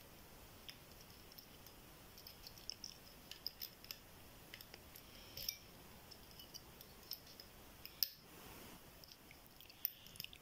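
Faint, irregular metallic clicks and ticks of a dimple pick working the pins of a GLK ten-pin euro dimple lock cylinder under light tension, with a sharper click about eight seconds in.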